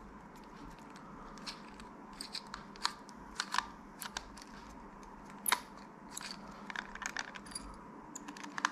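A small screw being turned out of a plastic tool housing with a precision screwdriver: faint, irregular clicks and scrapes of the driver tip and plastic, the sharpest click about five and a half seconds in.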